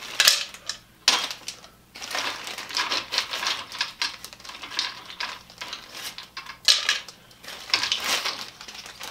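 HDPE plastic pop bottle caps clattering against each other as they are handled, in irregular bursts of rattling clicks. The longest run of rattling comes around the middle.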